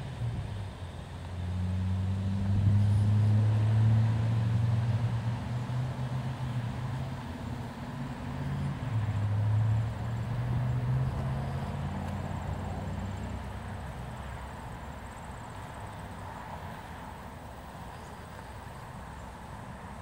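Low engine drone of a passing motor vehicle. It builds up in the first few seconds, shifts in pitch about nine seconds in, then fades away gradually over the second half.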